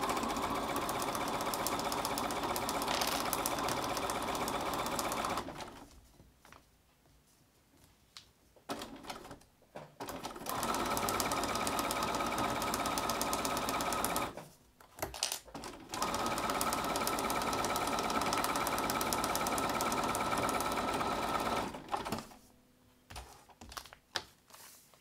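Electric sewing machine stitching a patchwork seam in three steady runs of about five, four and six seconds, stopping between them, followed by a few light clicks of thread snips near the end.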